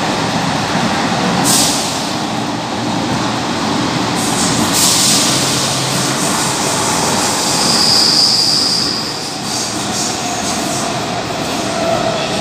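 Athens metro second-generation train running through a tunnel, heard from inside the car: a steady rumble and rush of wheels and motors, with two short hisses early on. About two-thirds of the way through, the wheels give one high squeal lasting a second or so as the train slows into a station.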